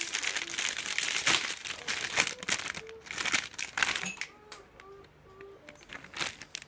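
Clear plastic bags around plastic model-kit runners crinkling as they are handled, dense and crackly for the first four seconds or so, then quieter and sparser.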